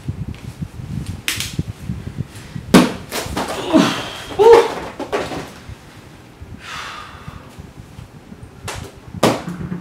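Knocks and thumps as a large tape-wrapped cardboard parcel is carried in and set down on a desk, the loudest a sharp bang about three seconds in, followed by a soft rustle and another knock near the end.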